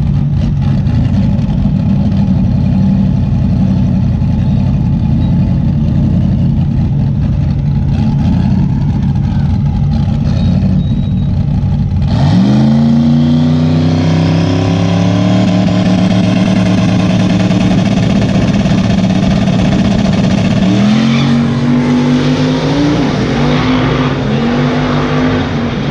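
Two Ford Mustang drag cars idle loudly on the start line, then launch about twelve seconds in. Their engines sweep up sharply in pitch and run hard down the strip. Near the end the pitch drops back three times at the gear changes, and the sound eases a little as they pull away.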